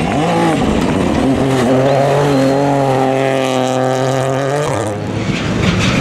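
Ford Fiesta rally car's turbocharged three-cylinder engine held at high revs on a gravel special stage, with a brief lift and pick-up right at the start. About five seconds in it cuts off and gives way to the quieter engine of a second rally car further away.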